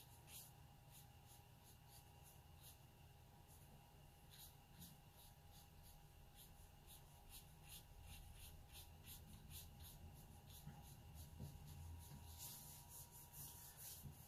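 Watercolour brush stroking and dabbing on Arches 140 lb watercolour paper: faint, quick, repeated brush strokes, coming thicker near the end.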